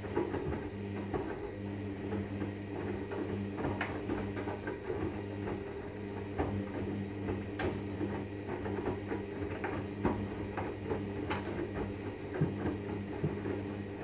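Hoover front-loading washing machine on a synthetics 30°C wash: the drum motor hums steadily while wet laundry tumbles and splashes in the drum, with scattered clicks and thumps.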